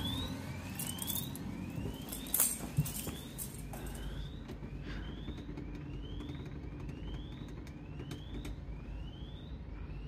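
A volt stick (non-contact voltage tester) on the pump's live supply cable, beeping a short rising chirp about every three-quarters of a second: it is detecting mains voltage. A couple of soft knocks a little over two seconds in.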